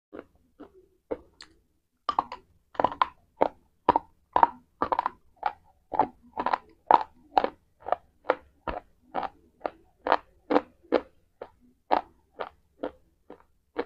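Close-up chewing of a hard white chalk-like piece: crisp crunches at about two a second, faint at first and louder and steady from about two seconds in.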